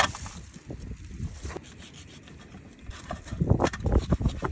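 A kitchen knife cutting and scraping through a large fish's gills and bones on a plastic cutting board, with short crunches and knocks that grow louder and come thicker from about three seconds in.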